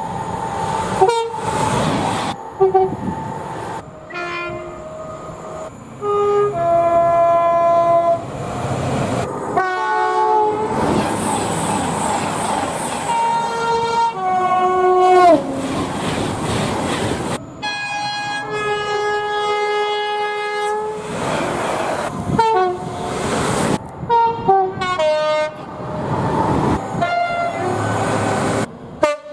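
A rapid series of different train horns cut one after another, each blast a few seconds long and most sounding several notes together as a chord. About halfway through one horn drops in pitch as its train passes, and running-train noise sits under the horns.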